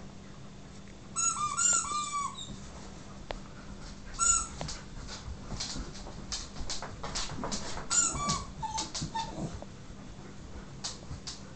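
Siberian huskies at play with a squeaky toy: groups of short, high squeaks about a second in, at about four seconds and at about eight seconds, with a run of sharp clicks and knocks in between.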